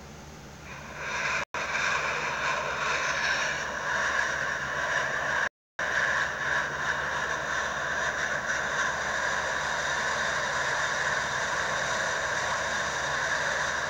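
Kilauea lava fissure erupting at close range: a loud, steady roar like a jet engine. It swells up about a second in and goes on unbroken except for two brief silent gaps.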